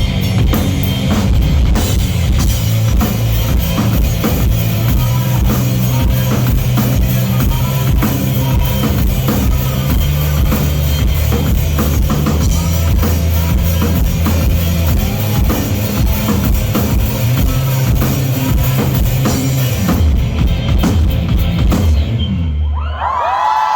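Live rock band playing the closing bars of a song, with a full drum kit and a steady bass. About twenty seconds in the drums stop and the band rings out a final chord, and near the end the crowd starts cheering and shouting.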